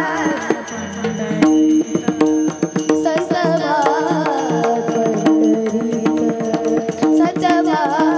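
Varkari bhajan music: a voice sings a wavering, ornamented melody over steady held harmonium-like tones, while hand drum and small cymbals strike a regular beat. The singing line thins out briefly about a second and a half in, then returns.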